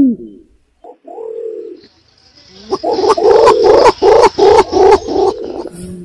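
Green imperial pigeons calling, played as a lure call. A short low coo comes about a second in, then a quick run of pulsed notes, about four a second, from nearly three seconds in until shortly before the end.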